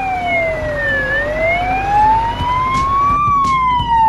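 Isuzu fire truck's siren sounding a slow wail, its pitch falling to a low point about a second in and climbing again to a peak about three seconds in.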